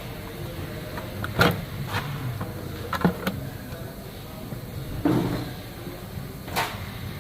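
Several separate knocks and clatters of loosened parts being handled and moved in an engine bay, over a low steady hum.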